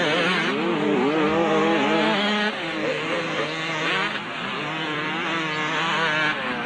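Motocross bikes racing round the track, several engines overlapping and revving up and down. A steadier engine note drops away about two and a half seconds in.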